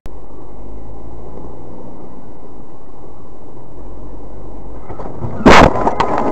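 Steady low rumble of a car driving, heard from inside the cabin, then a single loud bang about five and a half seconds in as something strikes the car's windshield and jolts the dashcam.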